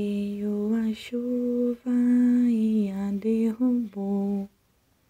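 A woman singing a slow, wordless lullaby in long held notes, with short breaks between phrases; it stops about four and a half seconds in.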